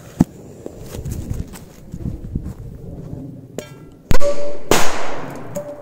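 Korsar 4 firecracker exploding under an upturned enamel bowl: a sharp click near the start, then a sudden very loud bang about four seconds in and a second loud blast half a second later that dies away slowly.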